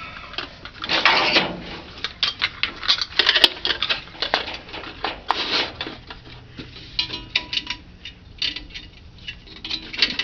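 Metal clinks, taps and scrapes of a 1991 Nissan D21's rear drum brake hardware (shoes and springs) being worked loose by hand. There is a longer scrape about a second in and many irregular sharp clicks.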